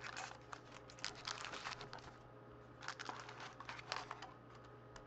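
Foil-wrapped trading-card packs crinkling and clicking as they are handled and stacked, in two spells of small rustles with a short lull between them, over a faint steady low hum.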